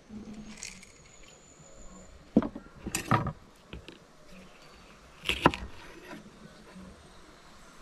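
Kitchen knife cutting on a wooden cutting board, heard as a few sharp knocks about two and a half, three and five and a half seconds in.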